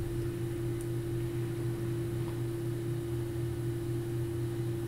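Steady low hum with one constant, unwavering tone above it; nothing else happens.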